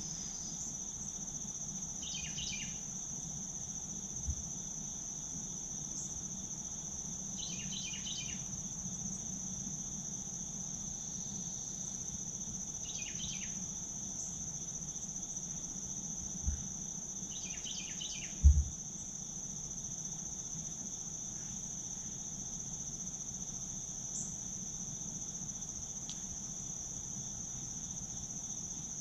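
Steady high-pitched insect drone, with a short chirping call repeating four times at about five-second intervals. Three low thumps break in, the loudest about two-thirds of the way through.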